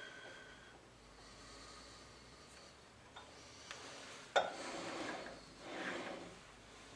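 Faint handling sounds at a lathe while a part is being centered in a four-jaw chuck: one sharp click a little after four seconds, then two spells of rustling as hands move about the machine.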